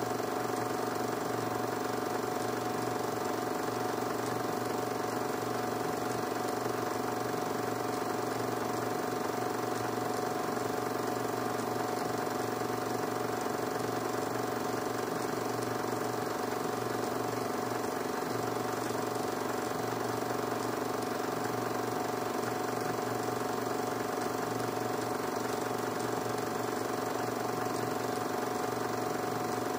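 A 16 mm film projector running steadily, its motor and film mechanism making a constant mechanical whir with a hum that never changes.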